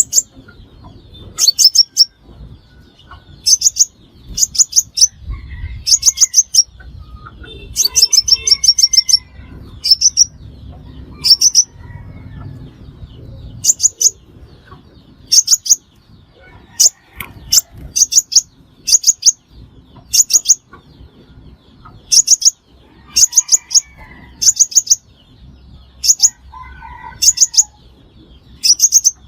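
A sunbird calling: short bursts of three to six rapid, very high, sharp ticking notes, repeated every second or two.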